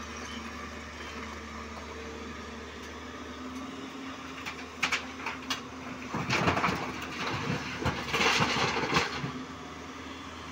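JCB crawler excavator's diesel engine running steadily, with a few knocks about halfway in. From about six seconds in, stones tumble out of its bucket into the steel body of a dump truck, a loud clattering that lasts about three seconds.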